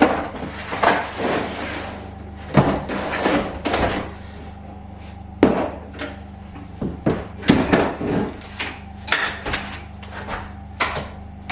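Irregular knocks and clatters of a small electrical box being handled and opened, its lid and parts clunking.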